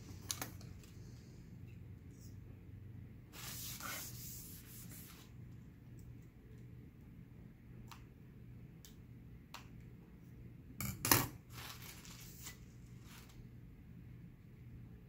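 Quiet room with a steady low hum, scattered faint clicks, a soft rustle about four seconds in, and a brief sharper clatter of clicks about eleven seconds in.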